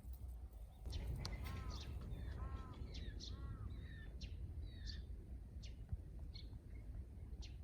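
Birds calling outdoors. From about a second in, a harsh, pitched call repeats three times about a second apart, among scattered short, high sparrow chirps, over a steady low rumble.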